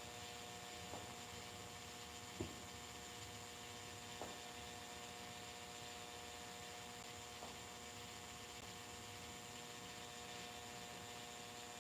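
Light rain: a faint steady hiss with a few scattered drips, under a steady electrical hum.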